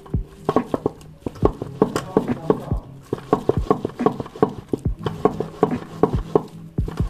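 Hands rubbing and pressing the fibrous pulp of a ripe palmyra palm (taal) fruit against a perforated steel strainer, giving quick irregular knocks and taps on the metal, several a second.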